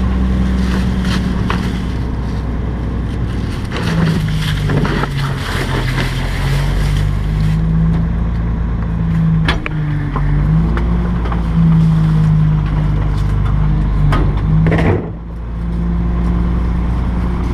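Rear-loader garbage truck's diesel engine running, its pitch shifting and wavering from about four seconds in as the packer works a load of tree branches. Crackling of branches and clattering of cans come over the engine throughout.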